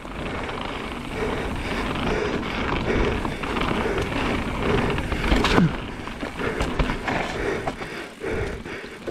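Mountain bike rolling fast down a rough trail: tyre noise on dirt and rock, with the bike knocking and rattling over bumps. A short falling squeal comes a little past halfway.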